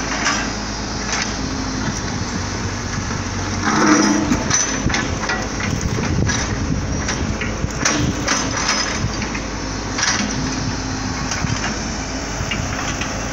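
Steady street noise with a low engine hum, broken by a handful of sharp knocks.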